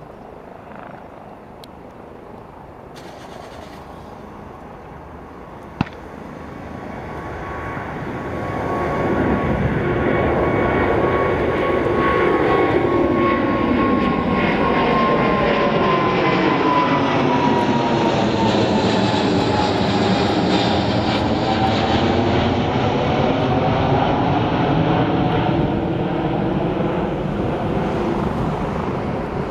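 Boeing 777-200 airliner's twin turbofan engines at takeoff thrust as it climbs out over the listener. The jet noise swells over a few seconds to a loud, steady level, with a high whine that slides down in pitch as the jet passes overhead, then begins to fade near the end. A single sharp click about six seconds in.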